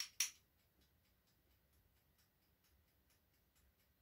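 A metal spoon taps once against a glass of flour, a sharp clink about a quarter second in, ending a quick run of taps. After it, faint regular ticking, about four or five a second, over near silence.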